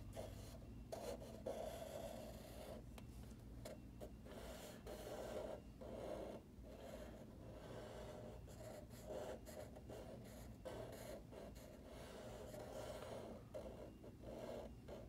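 Sharpie permanent marker drawing on paper: faint, irregular short strokes of the felt tip rubbing across the sheet, with brief pauses between them.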